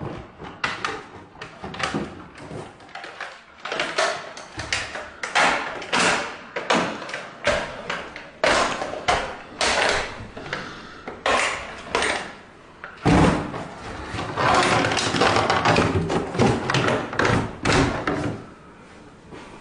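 Hard plastic parts of a smashed DJI drone being handled and packed into a cardboard box: a run of irregular knocks, clacks and scrapes, busier and rougher for a few seconds after the middle.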